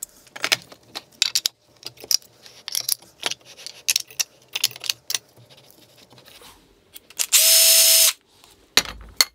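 Clinks and knocks of small metal parts and a wheeled acetal plate being handled against an aluminium extrusion, then a cordless drill-driver runs once, briefly, for under a second, driving a screw into the plate; the drill is the loudest sound.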